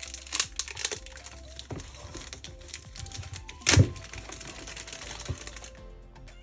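Small clicks, taps and knocks from a keyboard and its packaging being handled, with one heavier thump about four seconds in, over soft background music.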